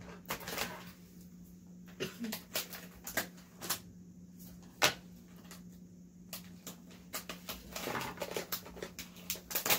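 A plastic snack bag of Nagaraya cracker nuts crinkling in irregular bursts as it is torn open and handled, with one sharp snap about five seconds in, the loudest sound.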